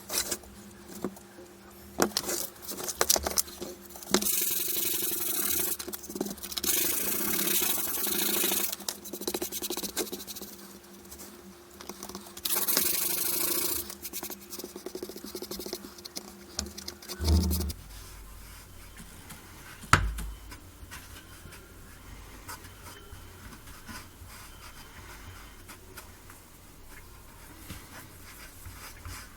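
Rubbing and scraping on a wooden cutting board in several long stretches of strokes, with scattered knocks and clicks of handling. A steady low hum stops with a thump partway through.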